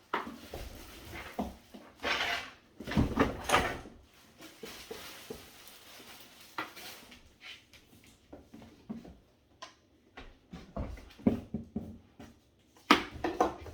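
Rustling and clattering of a cardboard box and plastic parts being handled and pulled out during unboxing, with scattered knocks and a louder stretch of rustling a few seconds in.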